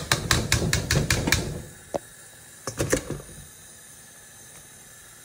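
Metal clattering against a steel cooking pot as dried fish pieces are tipped in from a steel colander: a quick run of about eight sharp knocks in the first second and a half, then a single knock and a short cluster of knocks about three seconds in.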